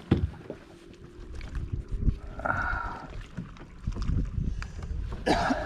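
Irregular low thumps and knocks of handling noise, with a short faint tone about halfway through.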